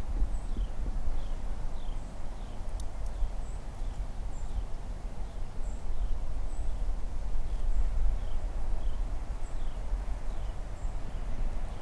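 Wind rumbling on the microphone, with a bird repeating short, falling chirps about once a second.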